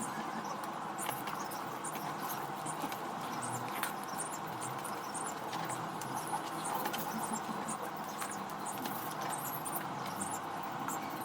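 A person eating rice congee close to the microphone: many small wet clicks and smacks of chewing and handling the food, scattered irregularly over a steady background hiss.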